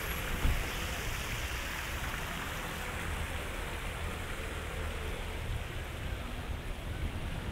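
A steady rushing noise, like running water, with a low rumble underneath.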